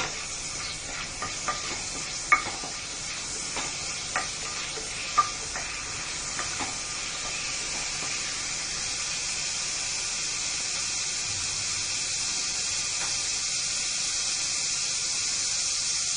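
Whole spices (bay leaves, cardamom and cloves) sizzling in hot oil in a pressure cooker pan. A wooden spatula stirs them and knocks against the pan several times in the first half, and the steady sizzle grows gradually louder.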